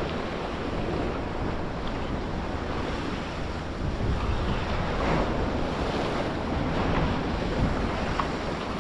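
Sea waves washing on the shore with wind buffeting the microphone, a steady rushing noise with a heavy low rumble.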